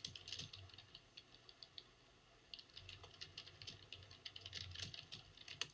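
Quiet, rapid typing on a computer keyboard in two runs of keystrokes with a short pause between them, and a sharper single click near the end.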